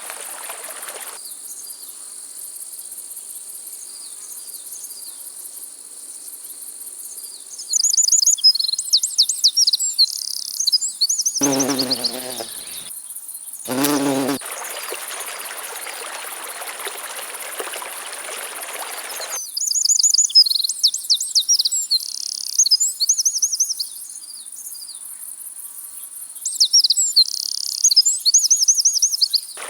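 Insects buzzing steadily at a high pitch, with a songbird singing three bursts of quick trills and whistles. Two short, low calls come near the middle.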